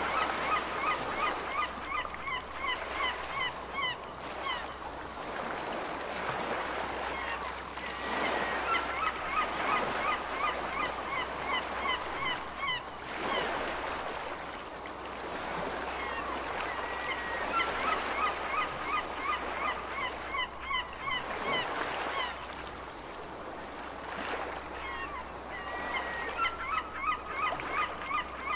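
Gulls calling over waves washing in and out. Bouts of rapid laughing calls, each opening on a longer falling note, come about every eight or nine seconds.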